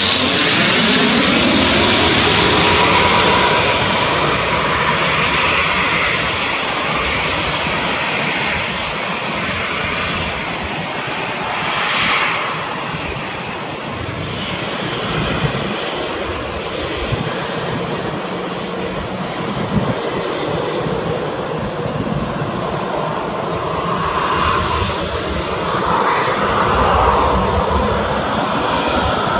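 Twin-engine turboprop airliner passing low overhead on landing, its engine and propeller drone sliding down in pitch as it goes by. A long rumble follows as it touches down and rolls out. Near the end, the engines of a jet airliner close by on the runway rise in level.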